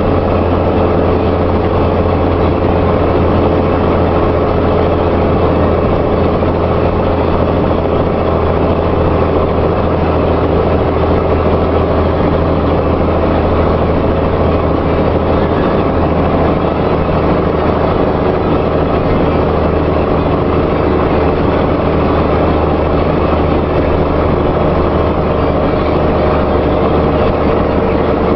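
Vehicle engine running steadily with a deep exhaust rumble, holding one even speed without revving.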